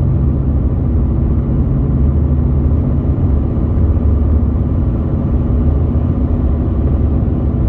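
Steady, loud drone of a car being driven, mostly low engine and road rumble, starting and cutting off suddenly.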